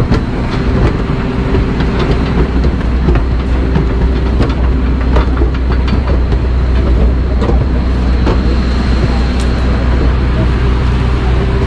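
Loud, steady low drone of jet aircraft noise on the airport apron, with a thin high whine coming in about halfway through. Scattered clicks and knocks of footsteps and a roller bag on the metal boarding stairs.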